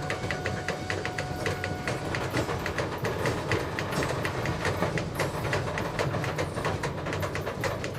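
Railcar wheels rolling slowly, clicking repeatedly over rail joints and switchwork, with a thin wheel squeal that stops about two seconds in, over the low steady rumble of an ALCo S1 switcher's diesel engine.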